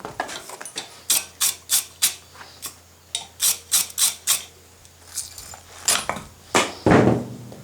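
Light metal-on-metal clinks: two even runs of four at about three a second, then a few louder, scattered ones near the end, over a faint low steady hum.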